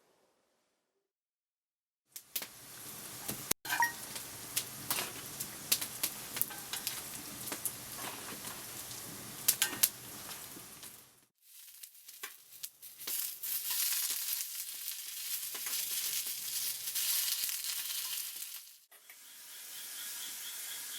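Food sizzling in a pan over a campfire, with frequent sharp crackling pops. It comes in three short takes separated by abrupt cuts, the middle one the brightest, and a faint rapid ticking is heard near the end.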